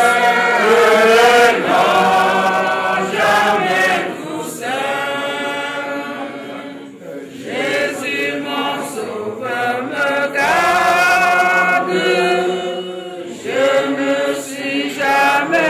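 A group of men's and women's voices singing a hymn together, in phrases of long held notes, a little softer around the middle.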